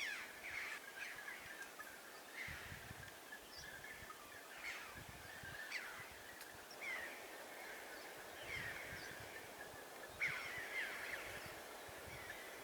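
Birds calling outdoors, faint: short, sharp calls repeating every second or so.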